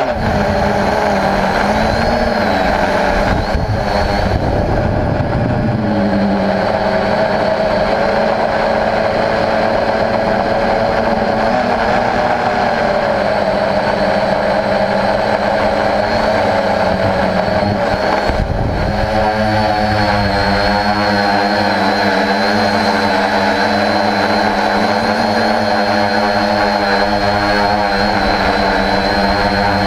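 Homemade quadcopter's motors and propellers, heard from its on-board camera: a steady, loud buzzing hum with several pitches together, which shift with the throttle about 18 seconds in.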